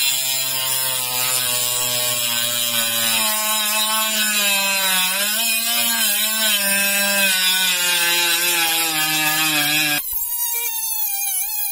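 Parkside PWSA 12 B1 12 V cordless angle grinder with a 76 mm disc cutting a steel threaded rod: a steady motor whine under the hiss of the disc grinding metal, its pitch sagging slowly under load. About ten seconds in the grinding stops and the motor keeps spinning freely.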